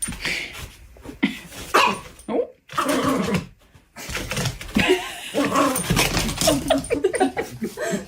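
A dog vocalizing with a run of short whines, yips and barks, with a brief break a little past halfway.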